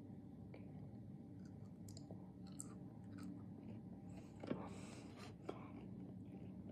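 Faint chewing and crunching of a Dubai chocolate bar with its crisp kataifi-and-pistachio filling, with scattered small clicks and a louder click about four and a half seconds in.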